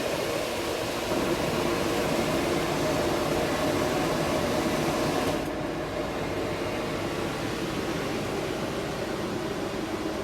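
Stainless-steel range hood's three-speed exhaust fan running with a steady rush of air and a low hum. About halfway through, the sound steps down to a quieter, duller level, like the fan dropping to a lower speed.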